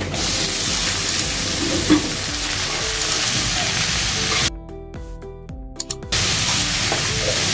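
Boiled carrot, cabbage and dal tipped into hot oil in an aluminium kadai over a tempering of onion, chillies and curry leaves, sizzling steadily as a spatula stirs it. The sizzling cuts off suddenly about four and a half seconds in, leaving only background music, and comes back about a second and a half later.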